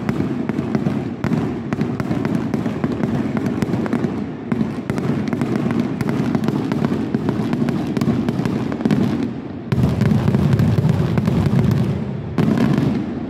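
Aerial fireworks display: a dense, continuous barrage of bangs and crackling from bursting shells, growing louder about ten seconds in.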